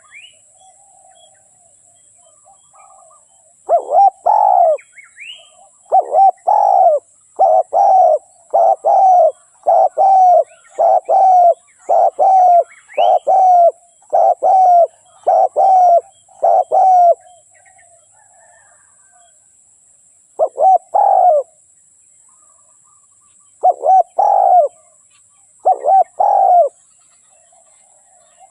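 Spotted dove (tekukur) cooing as a lure recording: a fast run of repeated low coos, about one and a half a second, then a pause and a few more coos near the end. Faint high chirps of small birds sound above it.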